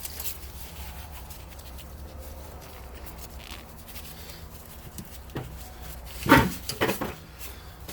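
Light handling and rubbing of metal parts at a rear brake caliper over a steady low hum, then a sharp metallic click with a few smaller clicks about six seconds in, as the small retaining clip is pried off the caliper.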